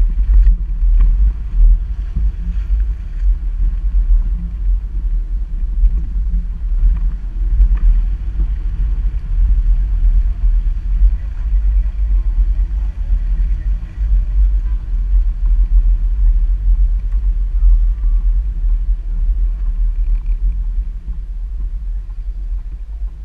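Mitsubishi Pajero Sport driving on a rough forest dirt track: a loud, uneven low rumble of the vehicle, picked up by a camera mounted outside on its door. The rumble dies down near the end.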